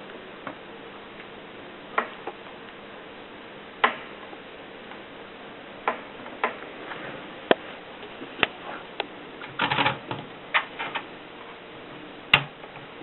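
Olympia Splendid portable manual typewriter being typed on slowly: single sharp key clacks at irregular gaps of a second or two, with a quick run of clacks about ten seconds in.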